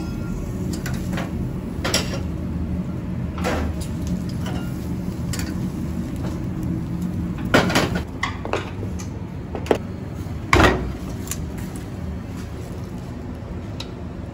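Stainless-steel pot lids clinking and knocking as they are lifted off and set back on rice pots on a multi-burner range: about five sharp metal clinks, the two loudest a little past halfway and about three-quarters in, over a steady low kitchen hum.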